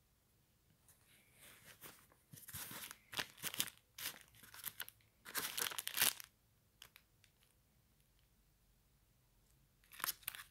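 Clear plastic invoice sleeve on a cardboard parcel crinkling and rustling as it is handled and pulled off the box, in a run of bursts over the first six seconds and once more near the end.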